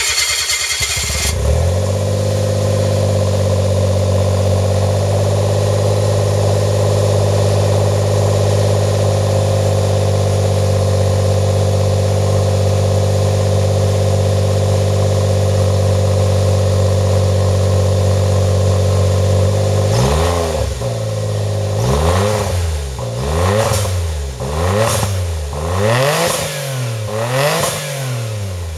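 Suzuki Jimny JB23's 660 cc three-cylinder turbo engine running through an aftermarket 5ZIGEN dual muffler and Cross-j Duplex front pipe. It has just started and idles steadily for about twenty seconds, then is revved in about six quick blips, each rising and falling back.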